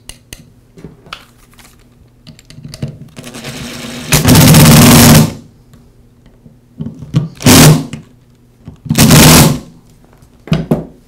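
Cordless impact driver running in the screws that join the two halves of a router's motor housing: a short run-up and then three loud bursts of rapid hammering, the first about a second long, the other two shorter.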